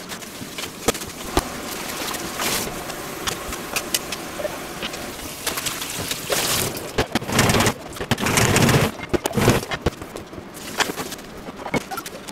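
Tap water running over lettuce in a plastic salad-spinner basket as the leaves are rinsed by hand, loudest in spells in the middle. Around it, clicks and rustles of crisp lettuce leaves being handled and torn.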